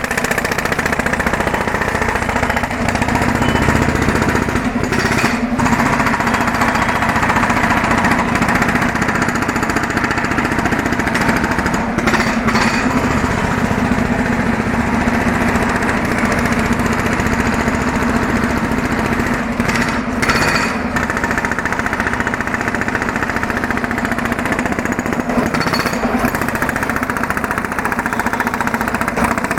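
Two-stroke petrol road drill (breaker) hammering continuously and loudly, its engine running steadily under the rapid blows.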